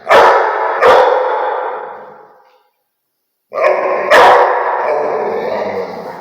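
A Rottweiler barking in two pairs, the barks in each pair about half a second apart. Each pair trails off in a long ringing echo.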